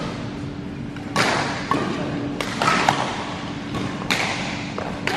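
Badminton rackets striking the shuttlecock in a rally: about six sharp hits spaced half a second to a second apart, with a couple of short squeaks from court shoes on the floor.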